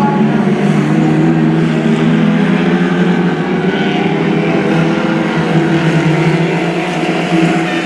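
Several Lightning Rods race cars' engines running hard together on the oval track, a loud, steady drone of overlapping engine notes.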